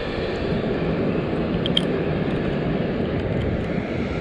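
Wind buffeting the camera's microphone: a steady rumbling noise, with a couple of faint high clicks a little under two seconds in.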